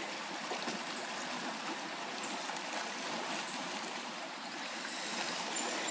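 Flood-swollen creek flowing fast, running close to the top of its banks: a steady, even rush of water.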